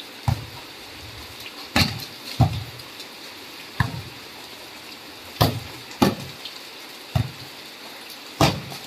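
A volleyball struck back and forth in a rally, about eight sharp smacks of hands and forearms on a wet ball at uneven intervals, over the steady hiss of heavy rain.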